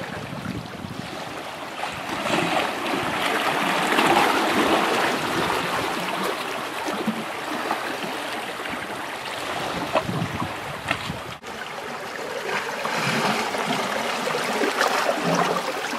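Sea water washing and splashing against shore rocks, a steady rush that swells and eases, with a couple of sharp clicks about ten seconds in.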